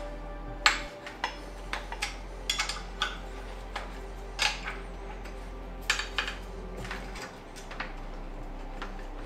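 Light metallic clinks and taps of tools and small bicycle parts being handled at a workbench, irregular, about one or two a second with a few sharper knocks.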